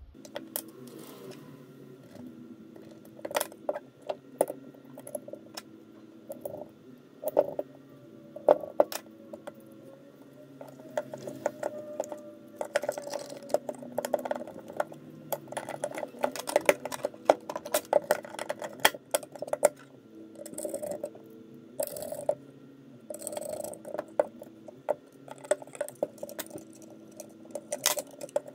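Parts of a Lenovo ThinkPad Thunderbolt 3 dock being handled and fitted back together: irregular clicks, taps and knocks of the circuit board, metal shield and plastic case against each other and the silicone work mat, over soft background music with steady held notes.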